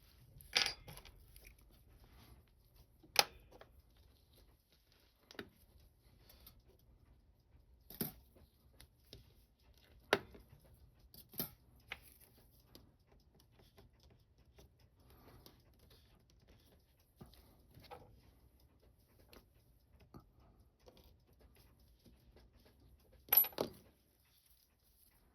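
Small sharp clicks and taps of watchmaking tools on the parts of a watch movement, about a dozen scattered a second or more apart, with a short cluster of clicks near the end.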